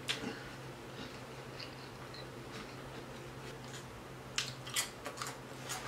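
Close-mic eating sounds from chewing a chili cheese hot dog: faint wet mouth clicks and smacks, with a short run of sharper clicks a little past four seconds in as another bite goes into the mouth.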